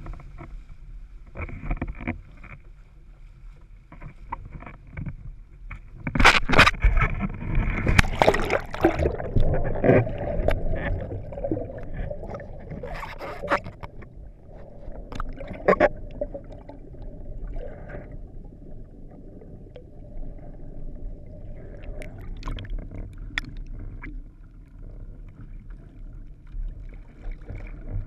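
Sea water splashing and rushing around a windsurf board, over a low steady rumble of wind on the microphone. About six seconds in it turns louder for several seconds of splashing with sharp knocks, and a few more knocks follow.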